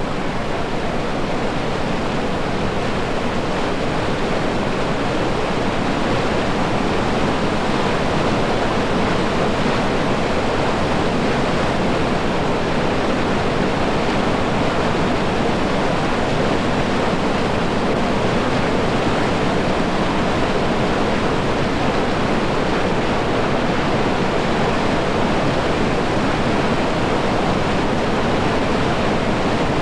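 Steady rushing of whitewater river rapids.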